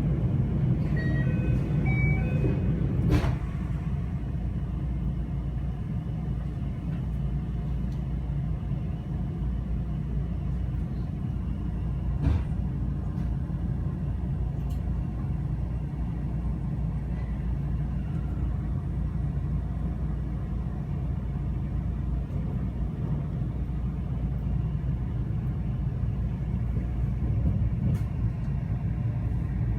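Train running, a steady low rumble heard from inside the carriage, with an occasional sharp click or knock.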